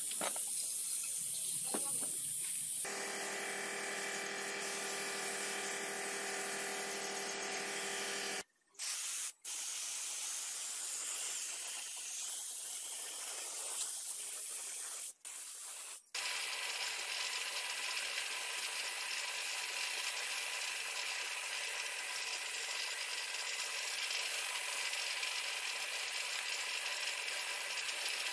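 Compressed-air paint spray gun hissing steadily as it sprays silver paint onto motorcycle engine parts, with a whistling tone over the hiss until about eight seconds in. The spraying breaks off briefly twice.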